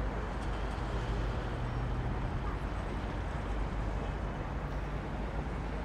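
Distant city traffic: a steady low rumble and hum of road noise.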